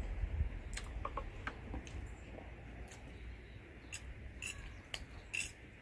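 Close-up eating sounds of crispy homemade fried chicken: scattered crisp crunches and small clicks at an uneven pace, with light clinks of tableware.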